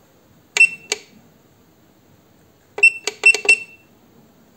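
Keypad beeper of a WEISAN RC210E800 electronic leadscrew controller on a lathe, beeping once for each press of the minus key as the thread-length setting steps down. There are two short beeps about half a second in, then a quick run of about five around three seconds in.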